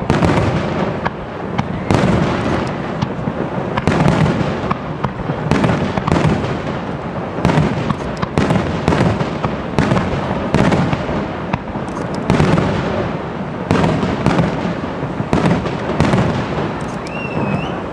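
Fireworks display: a continuous barrage of shell bursts, with a loud bang every second or two and crackling between them.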